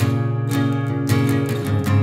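Fender CD-140S all-mahogany dreadnought acoustic guitar being strummed, with chords ringing between repeated strokes, a few per second.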